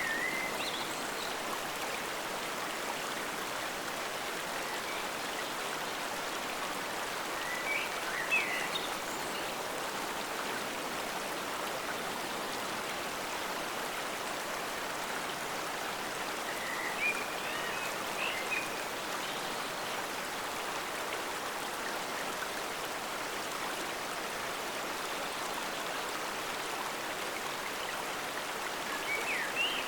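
Forest stream flowing steadily. Short higher-pitched chirps or gurgles come through about every eight to ten seconds, four times in all.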